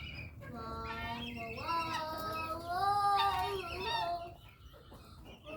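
A series of drawn-out animal cries, each about a second long and wavering in pitch, one after another, growing quieter near the end.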